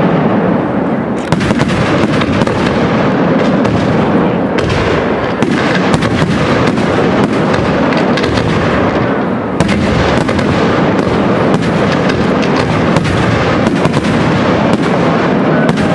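Large aerial fireworks display: shells bursting in a dense, unbroken barrage, many bangs overlapping each second with no pause.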